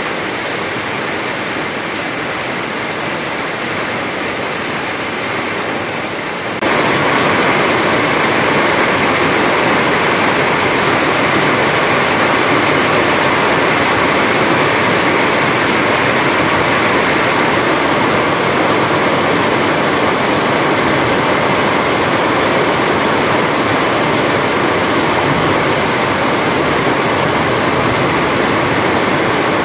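Steady heavy rain, a dense even hiss. About six and a half seconds in it abruptly becomes louder and fuller, then holds steady.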